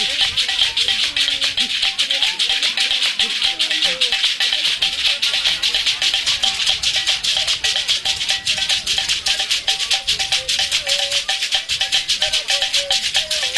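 Rattles shaken in a quick, even beat, with a voice calling over them: the percussion accompanying the Tchemou dance of Togo's Kara region.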